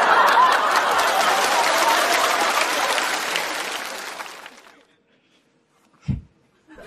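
Studio audience applauding, dying away about four and a half seconds in. A brief low thump comes near the end.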